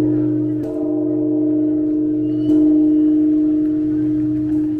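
Large bronze temple bell ringing with a long sustained hum and several overtones, swelling again about two and a half seconds in.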